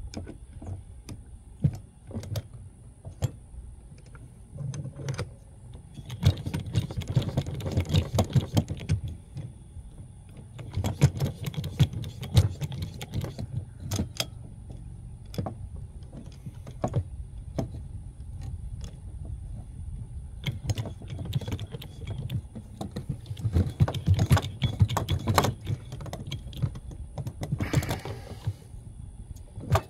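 Hydraulic lug press being worked to re-crimp a steel crimping sleeve on a winch cable: several runs of rapid metal clicking and clanking, with a short rushing noise near the end.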